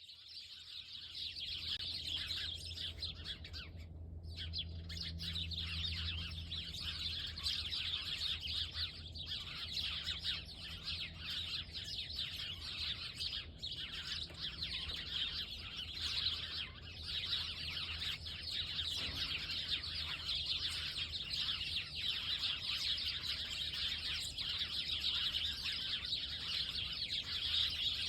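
A flock of small birds chirping and twittering all at once, a dense unbroken chorus of overlapping calls, with a low steady hum underneath.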